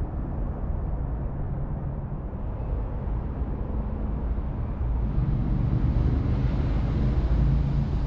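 A vehicle passing on a street: a steady low rumble, with a hiss of tyre noise that builds over a few seconds and fades near the end.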